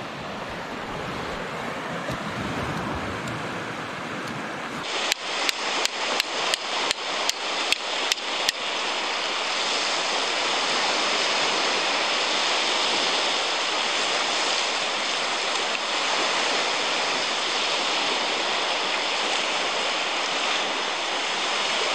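Surf washing onto a sandy Baltic Sea beach, a steady rushing hiss. For the first few seconds wind on the microphone adds a low rumble. About five seconds in, a run of about a dozen sharp clicks comes at roughly three a second.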